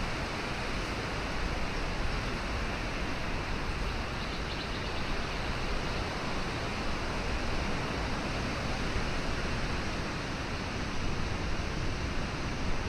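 Steady, even rushing noise with no distinct events, the kind of sound made by flowing water or wind.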